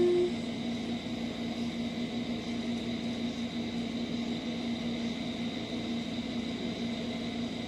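A steady low hum with a faint even hiss, like a running fan or appliance in a small room.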